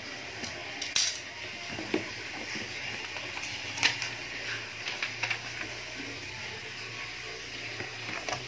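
Cardboard box being unpacked: packing tape slit with a cutter knife, flaps pulled open and a paper manual handled. Scattered sharp crackles and scrapes, the loudest about a second in and near four seconds.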